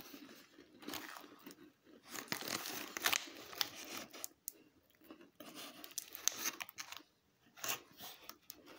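Clear plastic cookie tray and wrapper crinkling and crackling as it is handled, in irregular bursts with short pauses.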